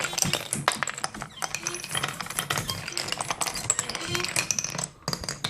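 Marbles rolling and clacking through the wooden tracks and blocks of a marble machine: a dense, irregular clatter of small hard clicks.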